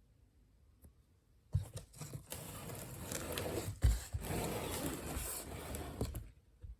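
Rustling and scraping of something being handled for a few seconds, with a thump as it starts and another near the middle.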